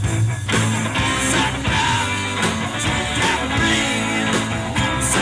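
A live country-rock band playing with drums, guitar and a man singing into the microphone.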